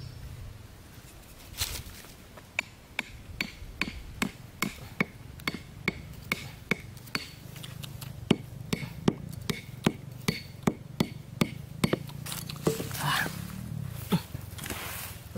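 A hatchet head hammering a bamboo stake into the ground: a steady run of sharp wooden knocks, about two or three a second, stopping about twelve seconds in, followed by a short rustle.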